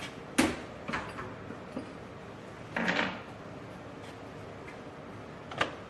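A few scattered clunks and clinks of tools and small metal parts being handled and set down on the transmission. The loudest comes about half a second in, then one near a second, a short cluster about three seconds in, and one more near the end.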